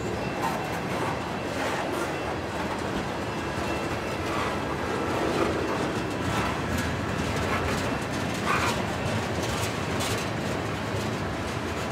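Freight train tank cars rolling past: a steady rumble of steel wheels on rail, with irregular clicks as wheels cross rail joints.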